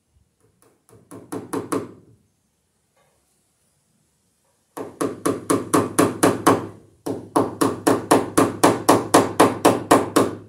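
Hammer driving a cable staple into a wooden ceiling beam to hold electrical wire: a short run of taps getting louder about a second in, then two long runs of quick, even blows, about five a second.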